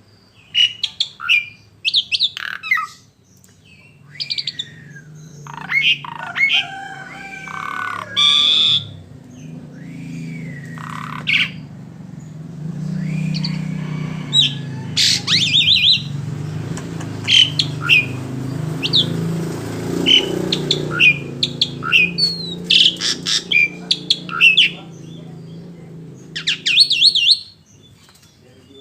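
Songbirds calling and singing in many short, sharp notes and quick trills, some sliding up or down in pitch, over a low steady hum.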